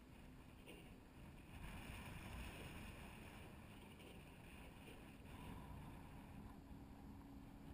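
Near silence: a faint hiss of wind and water, a little louder from about a second and a half in.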